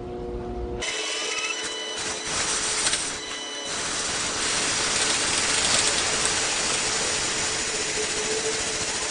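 Harsh mechanical grinding and rattling that starts abruptly about a second in and carries on steadily.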